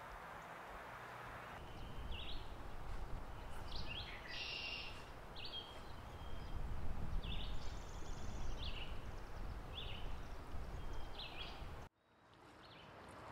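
Songbirds chirping in short, repeated calls over the steady rush of a stream. The sound cuts out suddenly near the end, then fades back in.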